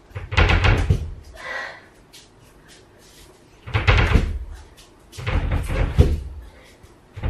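A duvet being handled and shaken out on a makeshift bed: four bursts of fabric rustling with soft thumps.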